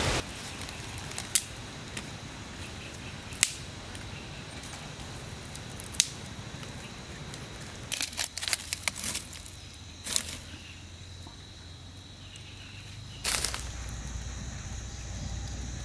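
Quiet outdoor ambience with a few scattered clicks and light rustles. About 13 s in, a short burst as kindling catches, then the steady low rush of a small open flame burning at the mouth of an earth pit.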